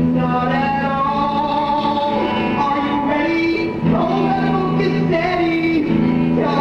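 Electric guitar, a Fender, being tuned and played with the stage band: held low notes under a melodic line that moves in steps above them, breaking off briefly about four and six seconds in.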